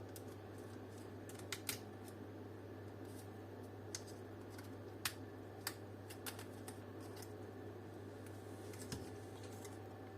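Scattered light plastic clicks and taps as the retaining tabs of a plastic car dome-light housing are pried and worked apart, a few sharp clicks spread irregularly over a steady low hum.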